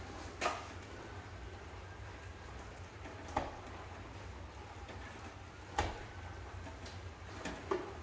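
Four sharp clicks a few seconds apart, from hand tools and stiff copper wire being handled at a metal outlet box while a GFCI outlet is wired, over a low steady hum.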